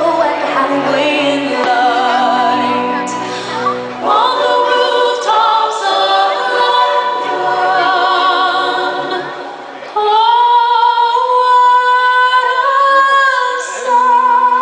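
Fireworks-show soundtrack music: a choir and female voices singing long held notes with vibrato, swelling louder about ten seconds in.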